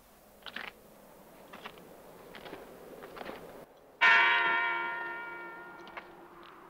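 A large bell struck once about four seconds in, ringing out and slowly fading. Faint scattered short sounds come before it.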